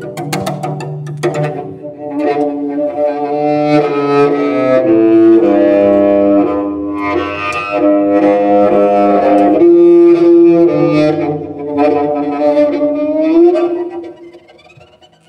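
Cello playing: a few sharp, struck attacks at the start, then long bowed notes sounding together, with a sliding note near the end before the sound fades away.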